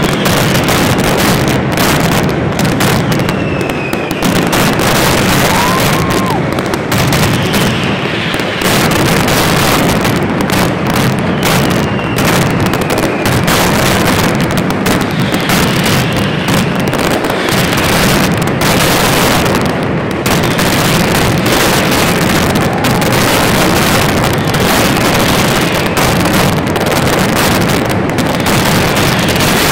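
Nighttime mascletà fireworks: a dense, continuous barrage of firecracker bangs and aerial shell bursts, loud and without a break, with a few short gliding whistles from the fireworks.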